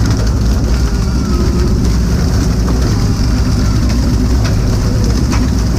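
A fishing boat's engine running with a loud, steady low drone.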